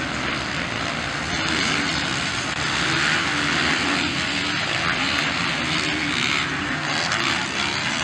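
A pack of motocross bikes racing, their engines revving hard and overlapping into one continuous, wavering engine noise.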